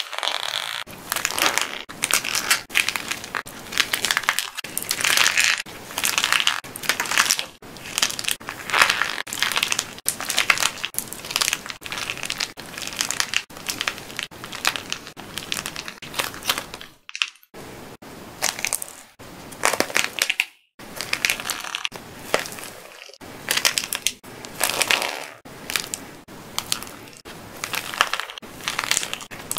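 Dried plaster-clay figures being crushed and kneaded by hand: their hard painted crust cracking and crunching into flakes in a dense run of crackles, with a couple of brief pauses in the second half.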